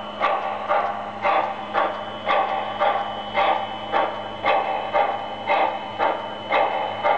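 Electronic steam sound effects from a G gauge Shay model locomotive's Protosound 2.0 sound system: a rhythmic puffing about twice a second, over a steady electrical hum.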